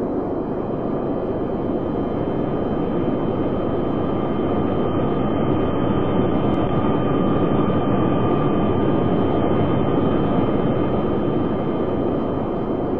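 Jet aircraft engines running with a steady roar and a faint high whine, swelling gently towards the middle and easing off near the end.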